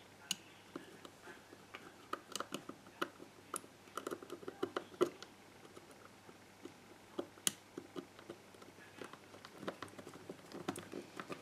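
Faint, irregular clicks, taps and rustles of small plastic parts and wires being handled as the plastic housing and internal board of a GHD 5.0 hair straightener are fitted together, busier around the middle.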